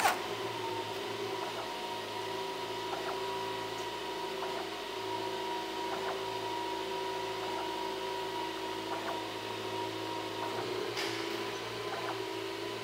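Clay Paky Sharpy Wash 330 moving-head fixture running a zoom cue: the motor driving the zoom train belt whines steadily over the hum of the fixture's cooling fans, with faint ticks every second or so and a sharp click at the very start. The freshly lubricated zoom train is travelling freely.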